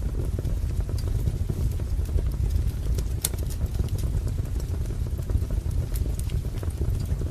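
Wood fire burning in a fireplace: a steady low rumble with scattered crackles and sharp pops, the clearest pop about three seconds in.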